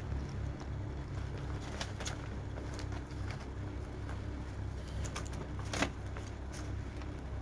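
Papers and a plastic bag rustling and crinkling under a tabby cat as it moves about on a cluttered desk: a few short crinkles, the loudest a little before six seconds in. A steady low hum runs underneath.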